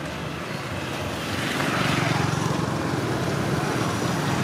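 Wind rushing over the microphone outdoors, swelling about a second and a half in.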